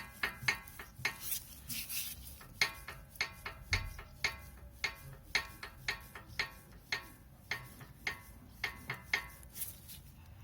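Repeated light metal-on-metal clinks from a front brake part being worked by hand, about two a second, each ringing briefly. The owner takes this part for the source of the high-pitched wheel noise.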